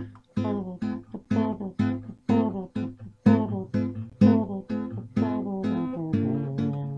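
Guitar music: plucked chords struck in a steady rhythm of about two a second, with the notes ringing on more steadily near the end.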